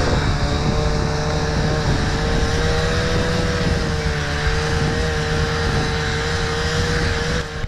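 Snowmobile engine running at a steady speed while towing a sledge across snow, one even motor tone over a rushing rumble. The level drops slightly near the end.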